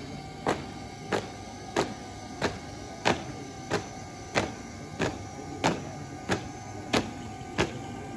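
Marching troop's boots stamping in unison on concrete, a sharp stamp about every two-thirds of a second, with a faint steady hum underneath.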